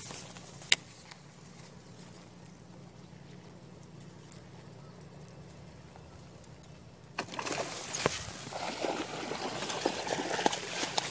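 One sharp click about a second in, then a quiet stretch of faint steady outdoor background. From about seven seconds in, close rustling and crackling of grass and clothing against the microphone as the camera is moved about in the grass.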